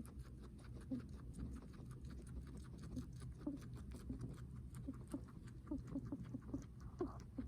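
Guinea pig breathing heavily: a fast run of small clicks with many short, soft rising squeaks, over a low steady hum.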